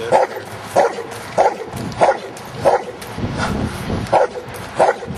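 Giant Schnauzer barking repeatedly at a steady pace, about seven barks with a short pause a little past halfway.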